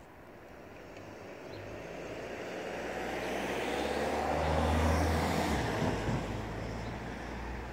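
A motor vehicle driving past, growing louder to a peak about five seconds in and then fading away.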